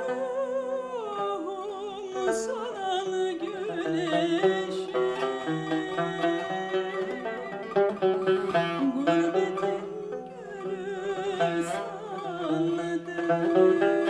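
Turkish classical makam music: a woman singing with a wavering vibrato over plucked string accompaniment.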